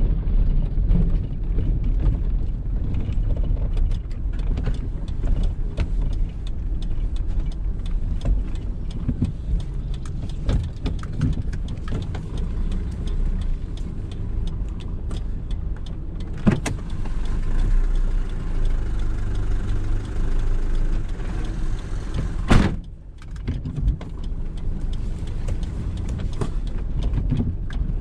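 Tow truck driving, heard from inside the cab: a steady low rumble of engine and road noise with scattered small clicks and rattles. A sharp knock comes about two-thirds of the way through, and a louder one shortly after, when the rumble briefly drops away.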